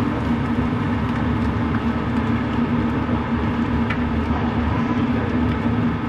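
Fried eggs sizzling in a non-stick frying pan on a gas stove, over a steady hum. There is a single click of the spatula against the pan about four seconds in.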